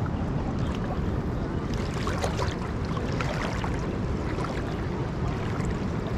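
Wind buffeting the microphone at the seashore, a steady low rumble over moving sea water, with a few light crackling splashes about two to three and a half seconds in.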